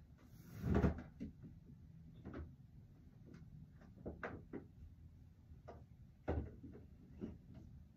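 Rummaging through belongings: a louder rustling thump about a second in, then scattered light clicks and knocks of small objects being moved, with one sharp knock a little after six seconds.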